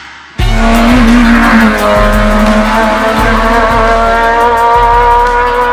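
Naturally aspirated 1.6-litre four-cylinder engine of a Honda Civic EG hill-climb race car, cutting in suddenly and loud at high revs. It holds the revs under load, its pitch creeping slowly upward as it pulls through a gear.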